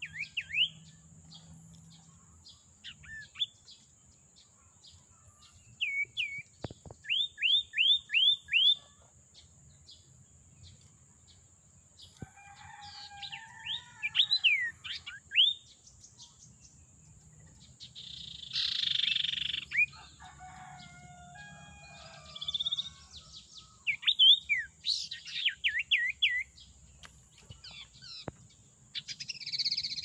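Common iora (sirtu/cipoh) calling: runs of four to six quick, sweeping whistled notes repeated every few seconds, with a harsher rasping chatter once, near the middle.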